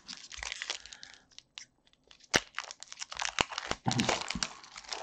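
Foil wrapper of a Pokémon trading-card booster pack crinkling and tearing as it is pulled open by hand, with dense crackles and a sharp crack a little over two seconds in.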